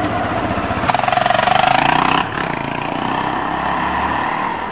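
PCC tram running along curved street track, with a steady squeal from the wheels on the rails over the rumble of the car. About a second in, a rapid buzzing rattle joins it and cuts off abruptly about a second later.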